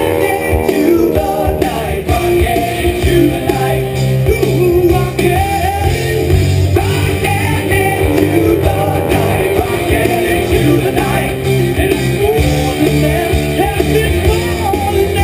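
Rock music with singing and guitar.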